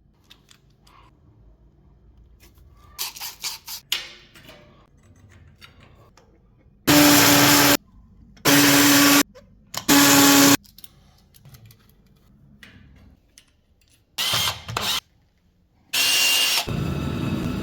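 A power tool run in three short bursts of about a second each at a steady pitch, then two briefer bursts, and near the end a steadier running noise sets in.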